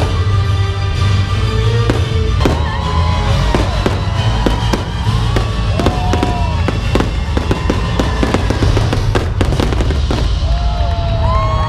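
Fireworks bursting overhead in a rapid run of bangs and crackles, over loud show music.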